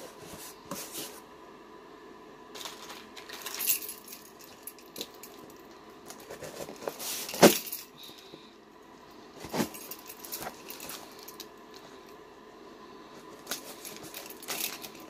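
Keys jangling on their ring and a key scraping at the packing tape of a cardboard shipping box, among irregular knocks and rustles of the box being handled. The sharpest clack comes about halfway through.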